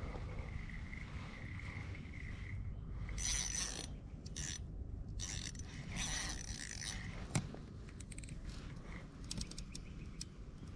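A spinning reel being cranked in several bursts, its gears whirring, with a sharp click a little past the middle and a few small clicks near the end.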